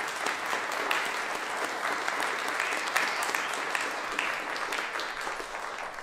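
Audience applause at a stage play: a dense, steady clatter of many hands clapping, thinning a little near the end.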